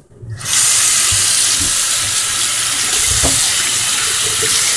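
Kitchen tap turned on about half a second in and running steadily into the sink as raw meat is rinsed under it.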